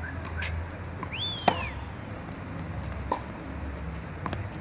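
Tennis ball being struck and bouncing on a hard court during a rally: a sharp hit about a second and a half in, then lighter pops about three and four seconds in. A short high squeak rises and falls just before the loudest hit.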